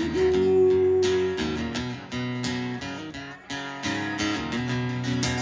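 Live acoustic guitar and voice: a sung 'ooh' held for about a second and a half, then strummed guitar chords changing with a steady beat.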